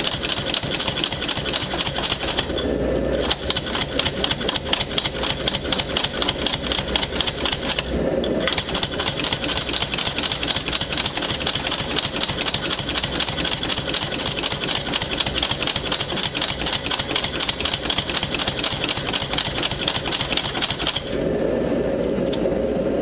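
Belt-driven benchtop power hammer rapidly striking a red-hot steel bar, its ram hammering in a fast, steady rhythm. The blows break off briefly twice and stop about two seconds before the end.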